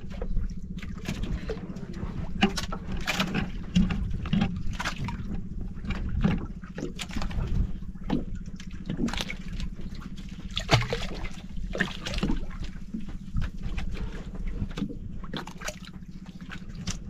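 Water splashing and sloshing at the side of an outrigger boat as a hooked fish is hauled up out of the sea by hand on a line, with scattered short splashes and knocks over a steady low rumble.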